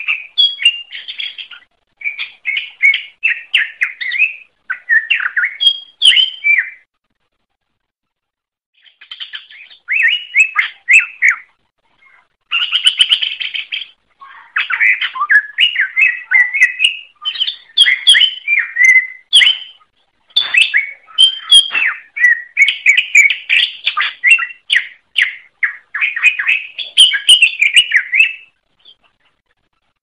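Cucak ijo (green leafbird) singing in full song: bouts of rapid, varied chirps and whistled notes lasting a few seconds each, broken by short pauses, the longest about two seconds, roughly a quarter of the way in.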